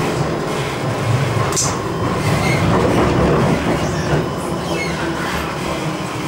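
Ride noise inside a Siemens Combino D2-class low-floor tram on the move: a steady rumble of wheels on rail, a little louder in the middle, with one short high-pitched sound about a second and a half in.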